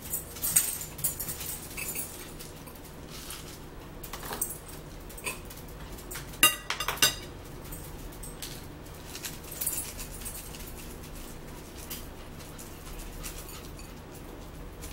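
Crunchy bacon bits being shaken from a plastic jar onto a salad: short bursts of rattling and light clicks, the loudest about six and a half seconds in.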